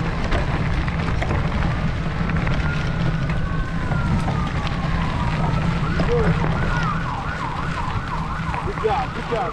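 Emergency-vehicle siren: a slow rising-and-falling wail that switches about six seconds in to a fast warbling yelp, about two cycles a second. A steady low rumble of wind on the microphone runs underneath.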